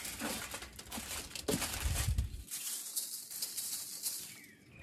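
Creole seasoning shaken from a shaker can over meat: a dry, rapid rattling of grains, with a gust of wind rumbling on the microphone about two seconds in.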